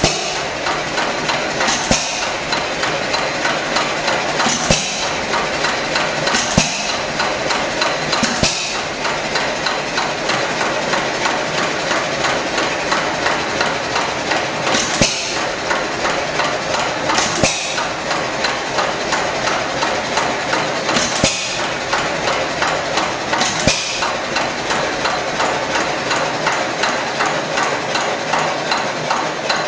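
Hit-and-miss stationary engine running: a steady fast clatter from its moving parts, broken by a louder pop-and-whoosh firing stroke about eight times, at uneven gaps of two to six seconds.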